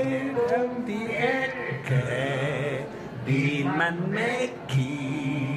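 A man's voice chanting in half-sung speech, breaking now and then into held notes.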